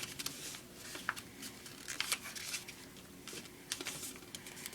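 A square sheet of origami paper being folded and creased by hand, with scattered soft crinkles and scrapes as the flaps are pushed in.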